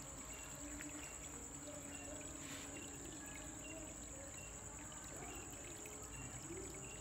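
Water trickling and pouring steadily into a small ornamental fish tank, with a thin, steady high-pitched whine above it.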